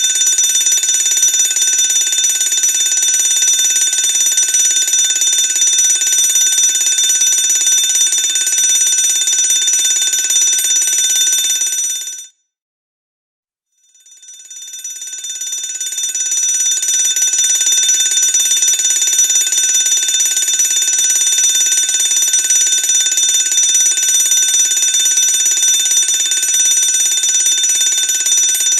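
Electric fire alarm bell ringing continuously. It stops abruptly about twelve seconds in, is silent for a second and a half, then fades back in and rings steadily again.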